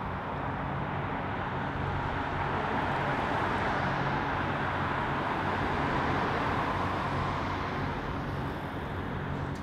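Road traffic: cars passing on a multi-lane road, the tyre and engine noise swelling to a peak around the middle and fading toward the end.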